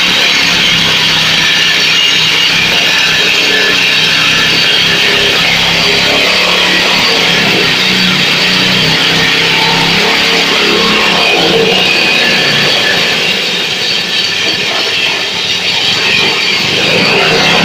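Background music with guitar, steady and loud throughout.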